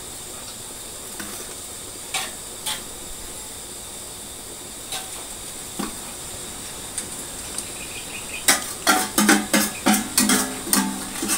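Metal spoon scraping and knocking against a stainless steel pot as thick fish-and-curry-paste mixture is scooped out: a few scattered clinks at first, then a quick run of loud ringing clinks for the last few seconds.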